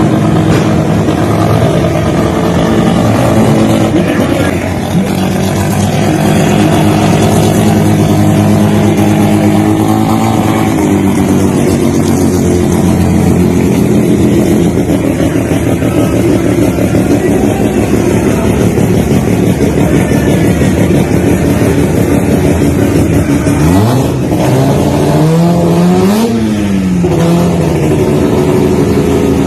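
Toyota Starlet engine running through a loud aftermarket exhaust at a steady low speed, then revved sharply about three-quarters of the way through, the pitch climbing quickly and falling back twice.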